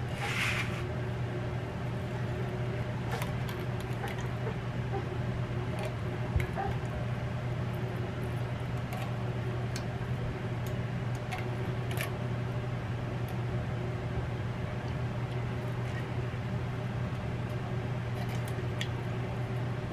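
Steady hum of a countertop convection air fryer oven running with its fan on while baking. Faint, scattered taps and scrapes come from a silicone spatula working soup out of a can into a steel bowl.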